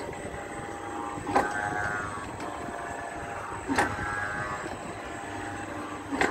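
A carousel turning: a steady mix of tones with a sharp knock about every two and a half seconds, three times.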